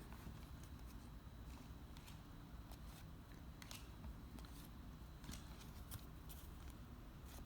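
Baseball cards being handled and flipped through, giving faint, irregular light clicks and rustles.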